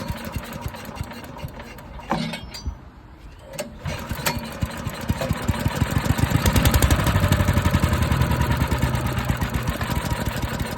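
Wood chipper's small gasoline engine starting on carb cleaner: it sputters for a few seconds, catches about four seconds in, and runs, swelling to its loudest around seven seconds before holding a steady run. It fires on the cleaner because its carburetor is not getting fuel to it.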